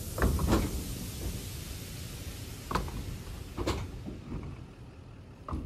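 A handful of short knocks and thumps at uneven intervals, the loudest near the start, over a faint steady background.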